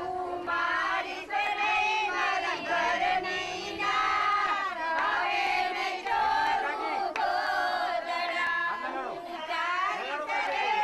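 A group of women singing together, many voices overlapping in held, chant-like lines.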